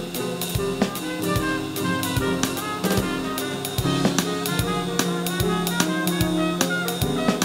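Live jazz from a chamber big band: a trumpet playing over a drum kit.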